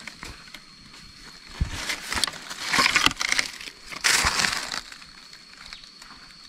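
Dry leaves and undergrowth rustling and crunching in two spells, one about two seconds in and a shorter one about four seconds in.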